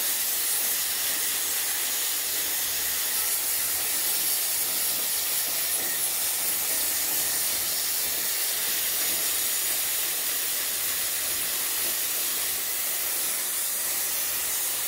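Pressurised water jet hissing steadily as it sprays the indoor unit of a split air conditioner during a cleaning service.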